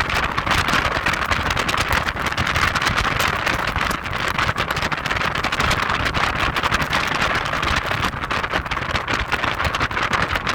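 Heavy wind buffeting the microphone of a moving Audi TT roadster, a steady, rough rush that covers the car's road and engine noise.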